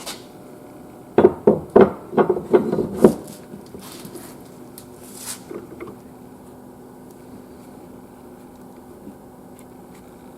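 A quick run of hard clattering knocks, about seven in two seconds, as an EasyWeld 110 plastic butt fusion welder is worked to bring the heated bars together, then a couple of softer knocks and a faint steady hum.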